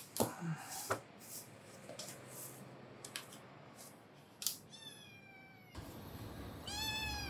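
A cat meowing twice: a drawn-out falling meow about five seconds in and a shorter rising-then-falling meow near the end. A few light clicks and taps come in the first second.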